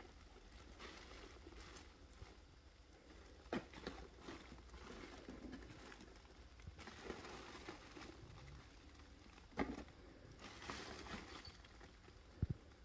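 Faint rustling of a crinkly nylon cat tunnel as a cat moves and paws about inside it, with three short sharp knocks spread through.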